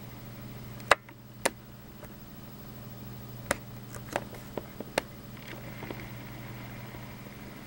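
A steady low hum with scattered sharp clicks: two loud ones about a second in, then a quick cluster of smaller clicks a few seconds later.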